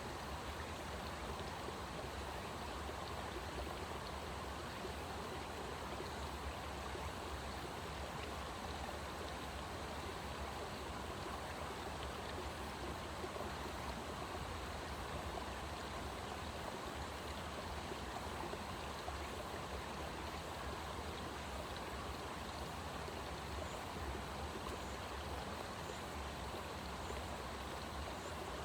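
Steady rushing of a flowing stream, even and unbroken throughout.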